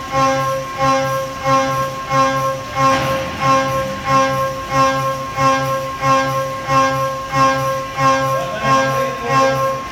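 12 mm four-flute end mill high-speed milling S355 steel plate at about 7,950 rpm on a Haas VF-2SS: a steady high whine set by the four flutes striking the steel, swelling and easing a little under twice a second as the cutter bites into each pass of its toolpath.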